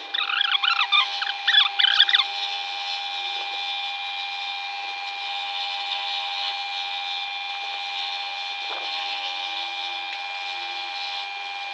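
Scroll saw running at slow speed, its blade cutting steadily through wood with an even motor hum. Irregular squeaky sounds over the first two seconds are the loudest part.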